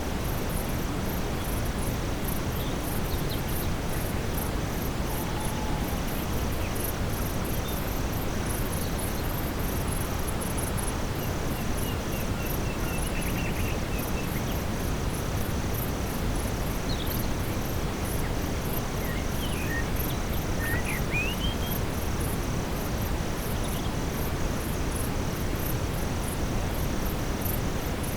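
Steady brown noise, an even deep rushing hiss, under a nightfall forest ambience of crickets and other insects chirping in steady pulsing trains. A few short, faint chirping calls come about two-thirds of the way through.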